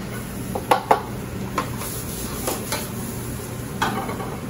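A handful of sharp clinks and knocks from a metal sauté pan and kitchen utensils as shallots go into the pan and the pan is set back on the gas range, over a steady low background hum.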